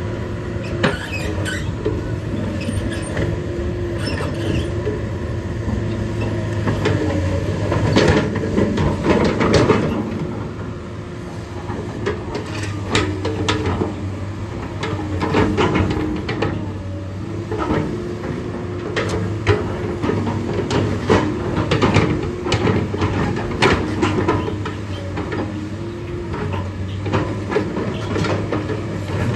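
Komatsu PC220 tracked excavator working: its six-cylinder diesel engine runs steadily with the pitch rising and falling as the hydraulics take load, over a clatter of clanks and knocks from the steel tracks and stones.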